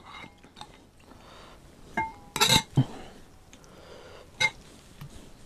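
Metal ladle knocking against a glass serving bowl of dal: a ringing clink about two seconds in, a louder clatter right after as it is set back in the bowl, and one more ringing clink about four seconds in.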